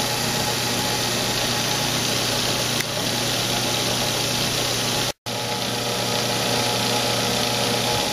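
Kalamazoo 1SMP 1 x 42 inch belt sander running steadily with no workpiece: the 1/3 hp motor hums and the abrasive belt hisses over its wheels at about 1800 surface feet per minute. The sound breaks off for a split second about five seconds in, then carries on the same.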